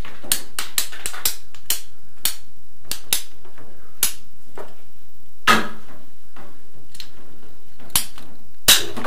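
Red ratchet pipe cutter working on a plastic pipe: a series of sharp clicks as the handles are squeezed and ratchet the blade through, about two a second with pauses, with louder snaps about halfway and near the end.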